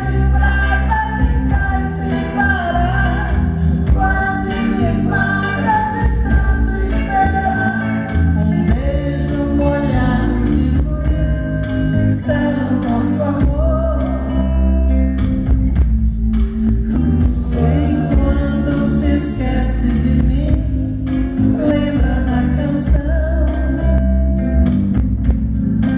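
A woman singing a song in Portuguese live into a microphone, her voice gliding and wavering over a band accompaniment with electric bass and a heavy low end.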